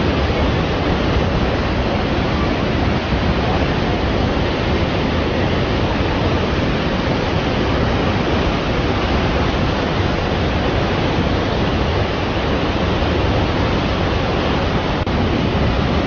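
Augrabies Falls on the Orange River in full flood: a loud, steady rush of floodwater pouring over the rocks and crashing into the gorge, with no let-up.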